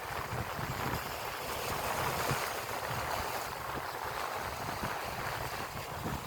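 Steady wind noise on the microphone over the wash of sea water.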